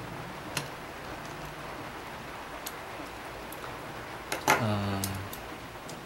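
A few small, sharp clicks of a screwdriver working the screws of a laptop's chassis during reassembly. Late on, a brief steady low hum lasting under a second is the loudest sound.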